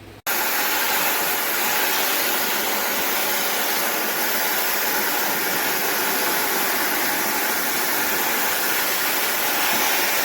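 Armor All 4-gallon wet/dry vacuum running steadily, a loud even rushing of motor and airflow that cuts in and out abruptly.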